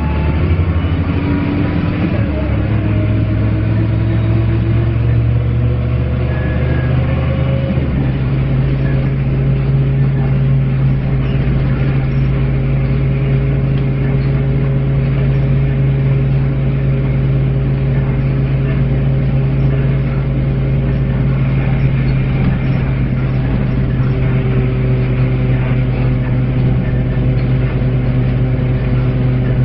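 Dennis Lance single-decker bus's diesel engine and drivetrain under way. Their tones climb and shift through the first several seconds, then settle into a steady, even drone. The groaning is the noise this bus is known for.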